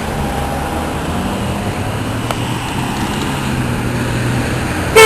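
Road traffic going past: a steady rumble of car engines and tyres, one engine's note shifting as it passes. A short loud burst comes right at the end.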